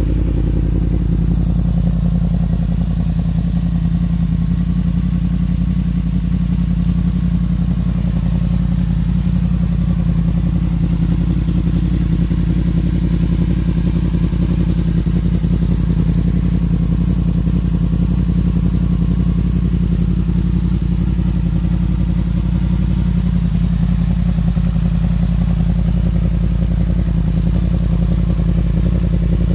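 2017 Yamaha FZ-10's crossplane inline-four engine idling steadily.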